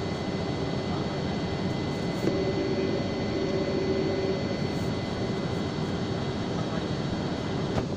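Steady jet engine and rushing air noise inside the cabin of a Boeing 747 climbing after takeoff, with a faint hum that rises for a couple of seconds about two seconds in.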